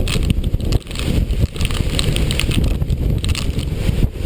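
Hurricane-force wind buffeting the microphone: a loud, gusting rumble that never lets up.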